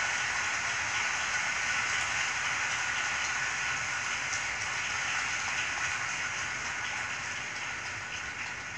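Large stadium crowd applauding, a steady wash of clapping heard through a television's speaker, fading near the end.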